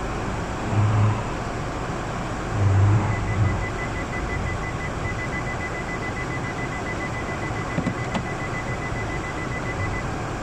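Car interior noise while driving, with a car's dashboard warning chime beeping rapidly and steadily from about three seconds in until near the end.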